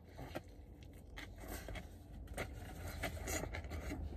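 Faint chewing of a big mouthful of burger, with soft wet mouth clicks about once a second over a steady low hum.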